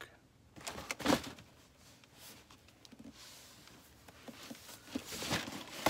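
Cardboard shoe box being handled and opened: a few soft rustles and knocks about a second in, then faint rustling and scraping of cardboard that builds toward the end.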